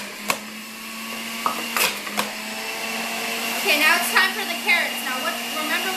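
Electric juicer running with a steady hum while apple and carrot pieces are pushed down its feed chute, with a few sharp knocks in the first half.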